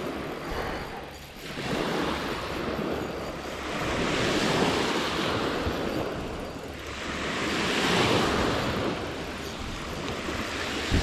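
Small sea waves washing onto the beach, a steady rush of surf that swells and ebbs in surges a few seconds apart.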